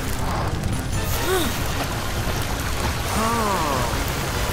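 Cartoon water cannon spraying a steady hissing jet of water, over background music. Two brief vocal sounds that rise and fall in pitch come about a second in and again past three seconds.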